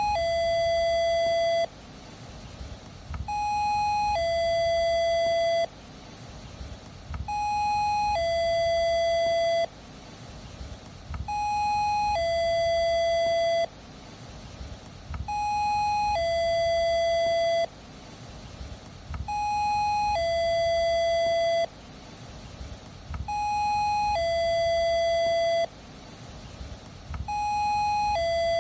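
Doorbell chime ringing its two-note ding-dong over and over: a short higher note, then a longer, lower note that cuts off cleanly, repeating about every four seconds.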